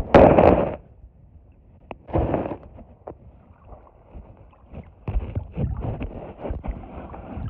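Muffled rushing and sloshing of water around a phone held underwater, in uneven bursts: a loud one at the start, a shorter one about two seconds in, and a choppy run over the last few seconds.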